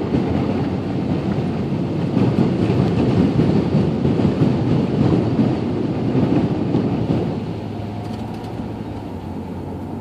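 A car ploughing through floodwater on a road, heard from inside the cabin: a loud rushing and spattering of water thrown against the body and windshield over the tyre and engine noise. About seven seconds in it eases to quieter, steady road noise as the car leaves the water.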